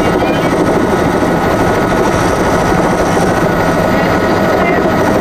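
Helicopter's turbine engine and main rotor running, heard from inside the cabin: a loud, steady din with a constant high whine over it.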